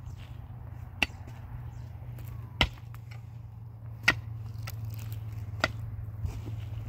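Four sharp knocks or strikes, about a second and a half apart, over a steady low hum.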